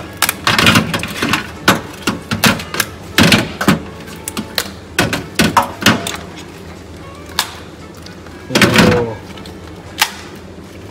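Giant mud crab being broken apart by hand: a quick, irregular string of sharp cracks and clicks as the legs and claws are snapped off, with pieces knocking against a stainless steel sink and tray. One longer, louder sound comes about eight and a half seconds in.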